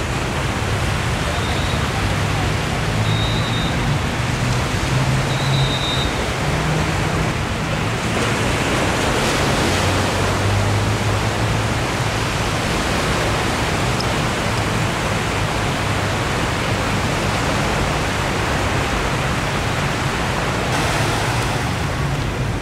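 Steady rushing noise of gentle surf on a sandy beach, with wind on the microphone.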